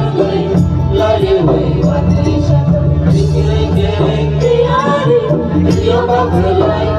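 Loud music with a singing voice gliding over heavy bass and percussion.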